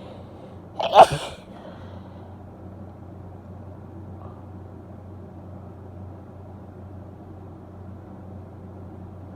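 A woman's single loud, wet sneeze about a second in, over a steady low background rumble.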